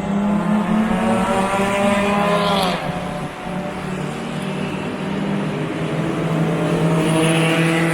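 Mazda Miata race cars accelerating at full throttle off the start. The engine note climbs for nearly three seconds, drops sharply at a gear change, then climbs again.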